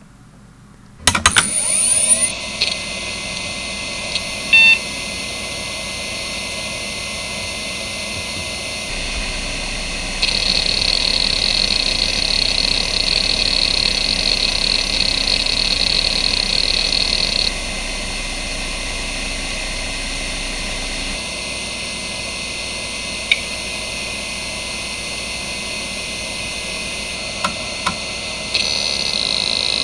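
Seagate ST9144A 2.5-inch hard drive (1992, three platters) working close up. About a second in there is a quick burst of loud head clicks, and then a steady spindle whine and hiss. In the middle the drive goes louder and more rasping for several seconds, as it seeks during a Spinrite benchmark. It gives two single clicks later, and turns loud again near the end as the hdmotion seek test starts.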